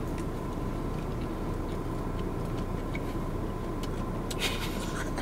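Steady low rumble of an idling car heard inside the cabin, with a faint steady whine above it. Over it come a few soft clicks of chewing, a small cluster of them near the end.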